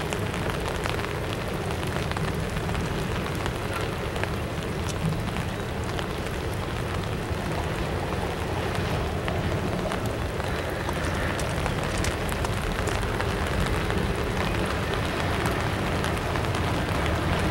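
Double-stack intermodal freight train rolling very slowly across a steel girder bridge overhead: a steady low rumbling noise with scattered sharp clicks.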